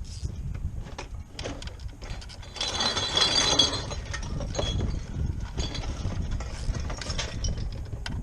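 Socket ratchet clicking while the replacement idle air control valve on a Ford 3.0L engine is being fastened. There is a dense run of rapid ratcheting about three seconds in, among scattered clicks and clinks of tools.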